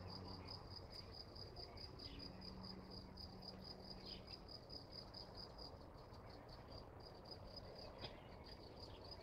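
Faint, steady cricket chirping: an even train of short high chirps, about six a second, in an otherwise near-silent moment.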